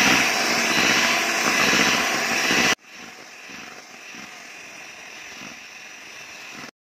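Electric hand mixer whirring as its beaters whip egg whites and icing sugar into meringue in a stainless steel bowl. The loud whir drops suddenly to a much quieter steady whir a little under three seconds in, then cuts off near the end.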